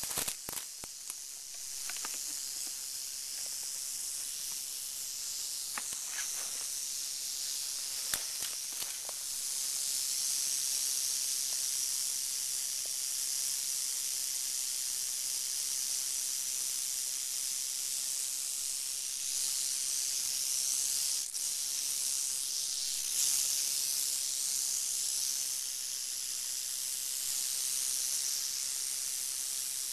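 A western rattlesnake (Crotalus oreganus) rattling its tail in a continuous high buzz, the warning of a disturbed snake. The buzz grows a little louder about a third of the way in. A few sharp crackles of dry twigs come during the first several seconds.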